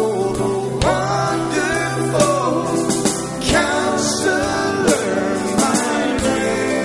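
Live gospel worship music: a singing voice over a band with sustained instrument tones and sharp drum hits.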